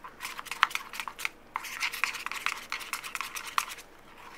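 A spoon stirring shaving cream and baby oil in a bowl: quick, irregular clicks and scrapes of the spoon against the bowl.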